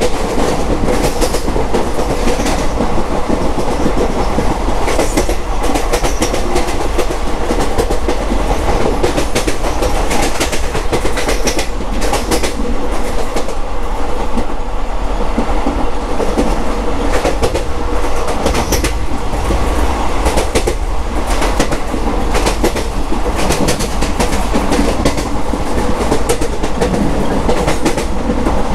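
Moving passenger train heard from aboard a coach: a steady rumble and rattle, with the wheels clacking irregularly over the rail joints.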